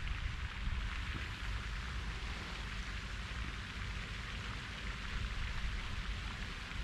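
Steady outdoor hiss with wind rumbling unevenly on the microphone.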